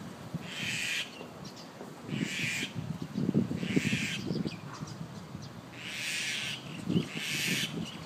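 Mynah bird giving five harsh, raspy calls, each about half a second long and spaced one to two seconds apart.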